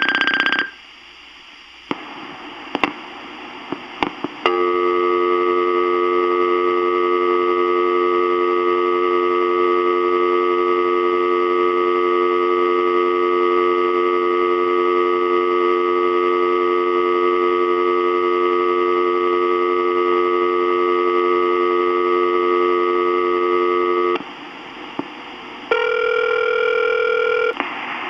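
Answering machine playing back recorded incoming messages from its cassette. A beep ends right at the start, a few faint clicks follow, and then a steady telephone dial tone recorded on the tape runs for about twenty seconds. A shorter, different tone follows near the end.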